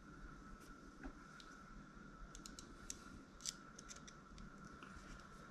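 Faint small clicks and taps of metal parts as the handle assembly of a Shimano Stella SW 30000 spinning reel is handled and screwed together. There are about a dozen, bunched in the middle, and the loudest comes about three and a half seconds in, over a faint steady tone.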